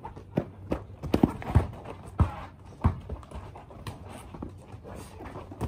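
Basketball bouncing on a backyard sport court: a run of hard thumps roughly every half second over the first three seconds, then fainter knocks.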